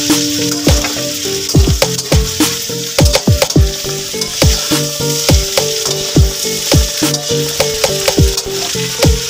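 Sliced beef skin sizzling in oil in a wok while a metal spatula stirs it, scraping and knocking against the pan. Background music with a beat plays underneath.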